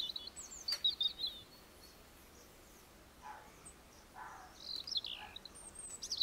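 Songbirds singing short, quick twittering phrases: one burst at the start, another around five seconds in, and a third at the end, with a single sharp click near the start.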